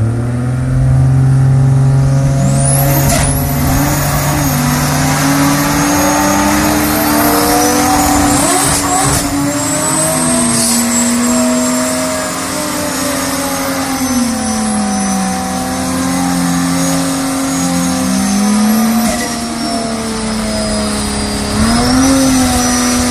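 Turbocharged Ford Barra 4.0-litre straight-six engine running. It holds a steady low note for about the first six seconds, then engine speed rises and falls slowly through the rest, with a high whine rising and falling alongside.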